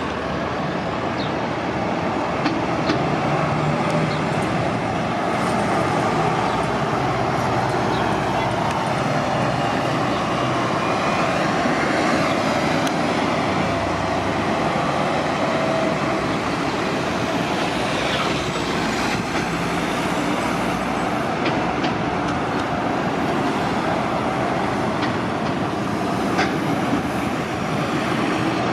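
City transit buses running at a bus terminal: a steady engine drone with traffic noise and a few brief clicks.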